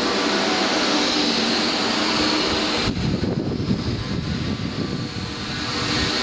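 Concrete mixer machinery running with a steady mechanical hum. About three seconds in the sound changes abruptly to a lower, rougher, uneven rumble, and the steady hum returns near the end.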